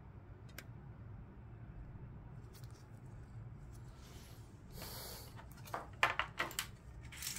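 Light handling of disassembled plastic keyboard parts: a brief rustle about five seconds in, then a run of short plastic clicks and taps near the end, over a steady low hum.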